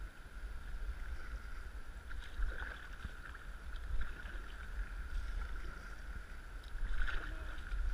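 River water rushing and splashing around an inflatable kayak as it is paddled, with a few louder splashes from paddle strokes and a low rumble of wind on the microphone.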